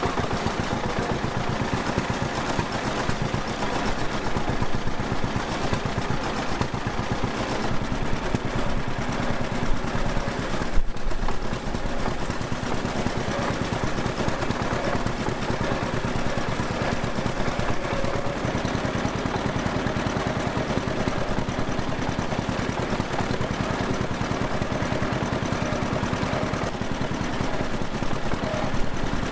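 John Deere B's two-cylinder engine running steadily, its exhaust a rapid, even popping. It runs decently, but the engine is tired.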